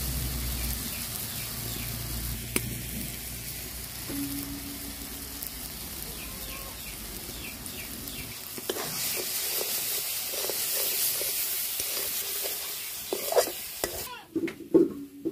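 Tomato masala sizzling in a hot aluminium kadai while a steel spatula stirs and scrapes it around the pan. The sizzle grows stronger about halfway through, and a few sharp knocks come near the end.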